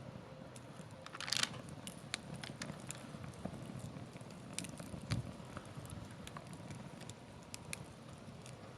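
Wood fire crackling, with scattered sharp pops over a low steady rumble and a brief louder burst of crackles about a second and a half in.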